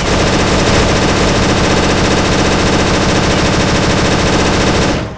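Machine-gun fire sound effect: a continuous stream of rapid automatic shots that starts abruptly, runs for about five seconds and tails off at the end.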